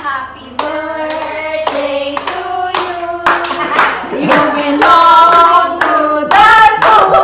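A group of women singing a song together while clapping along, about two claps a second. The singing grows louder about halfway through.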